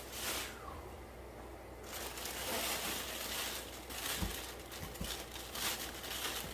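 Plastic fish shipping bags crinkling and rustling as they are handled, with two soft knocks a little past the middle.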